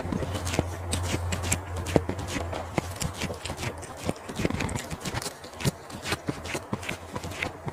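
Close-up eating sounds of a person chewing barbecue sausage and lettuce: many irregular mouth clicks and smacks in quick succession.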